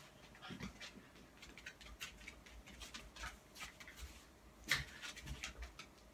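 A dachshund and a cat play-fighting on a wooden floor: faint scattered scuffling and clicking of paws and claws on the boards, with one louder bump about three-quarters of the way through.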